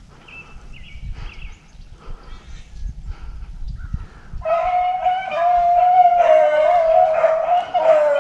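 Rabbit hounds break into a loud, continuous bay about halfway through, more voices joining in soon after: the pack giving tongue as it runs a rabbit.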